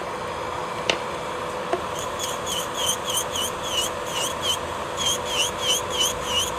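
Electric nail drill (e-file) running steadily while it thins gel on a nail, a constant motor whine. From about two seconds in, a rapid run of high, short chirping squeaks comes in, about four a second.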